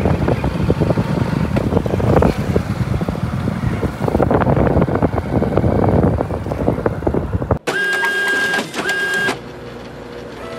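Loud, rough rumbling noise with many crackles from an outdoor phone recording. About seven and a half seconds in it cuts abruptly to a short sting of steady electronic tones, briefly broken, and then a faint steady hum of tones.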